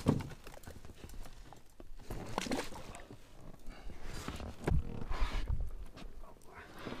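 Irregular knocks and rustling from handling a fish stringer aboard an inflatable boat, with water splashing as the stringer holding caught pike is lowered over the side into the river; the loudest burst comes about five seconds in.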